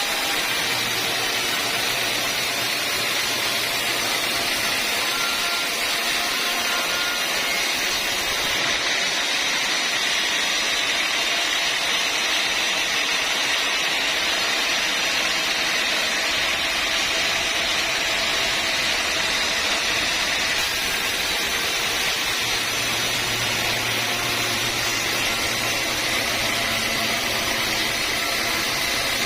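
Sawmill saw running steadily, a continuous even machine noise without pauses or changes.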